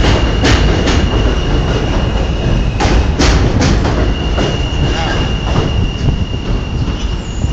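R160A subway train pulling out of the station past the platform, rumbling, with a steady high-pitched tone and sharp wheel clacks over rail joints near the start and again about three seconds in. It eases off near the end as the last car moves away.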